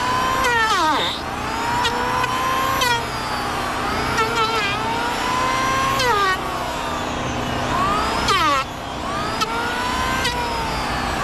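An engine running under changing load, its pitch climbing gradually and then dropping sharply, about five times.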